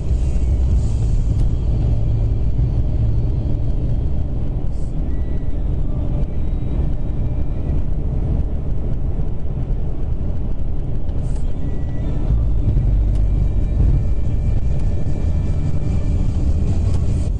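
Road noise inside a moving car at speed: a steady low rumble from the tyres and the road.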